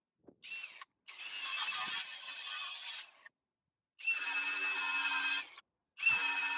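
A small power tool running in four short bursts, each with a hissing grind and, in the later ones, a steady high whine.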